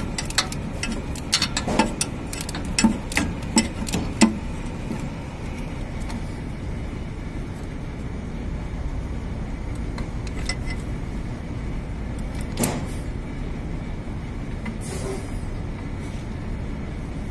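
Irregular metal clinks and taps of a spanner on the air compressor's mounting nuts and bolts as they are undone, bunched in the first four seconds with one more clink later. A steady low rumble of engine or traffic noise runs underneath.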